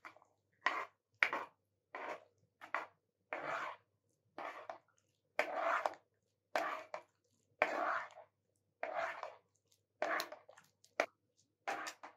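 Metal spoon scraping chopped coriander out of a metal bowl into a pot, then stirring it into the milky liquid, in short scraping strokes roughly one a second.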